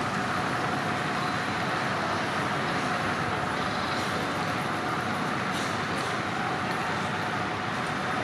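Steady hum of a railway station platform under a roof, with trains standing at the platforms and a faint high tone running through it.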